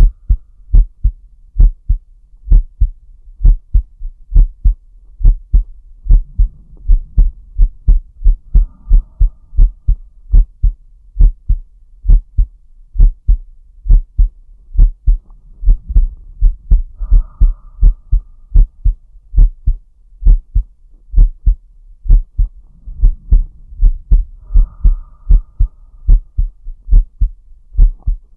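A man's heartbeat heard close up: steady, regular low lub-dub thumps. Slow deep breaths are faintly heard about every eight seconds underneath.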